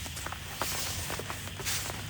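Heavy rain: large drops tap irregularly on a tarp shelter over a steady hiss of rainfall. The hiss swells briefly twice, about halfway through and near the end.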